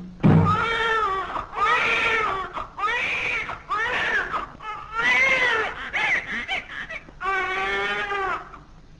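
Infant crying: about seven wailing cries, each roughly a second long, with short breaths between.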